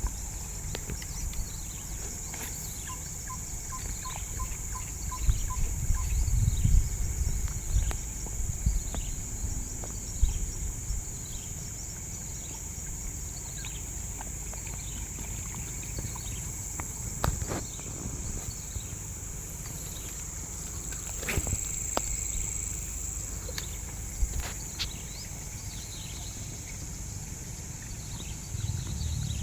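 Tropical forest insects: a steady high drone with short falling chirps repeating about once a second. A short run of about seven even, pitched notes comes a few seconds in, and there is some low rumbling around six seconds in.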